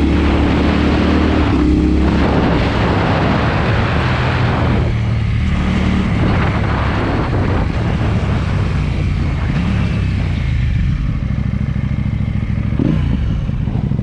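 KTM 790 Duke's parallel-twin engine running loud through an SC-Project exhaust while riding, its pitch rising and dropping with the throttle, with wind noise over it.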